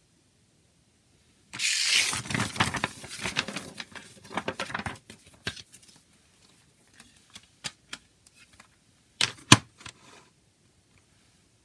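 Paper poster insert being folded up and handled, a dense crinkly rustle lasting a few seconds, then a few light clicks and two sharp clacks close together near the end as a plastic CD jewel case is set down on the table.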